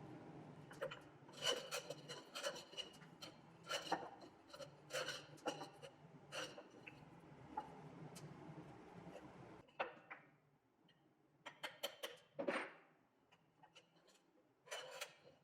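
A machine hums with a steady low drone while many sharp clicks and scrapes come from a wooden nut being threaded on a single-point threading rig. The hum stops about ten seconds in, leaving scattered clicks and knocks.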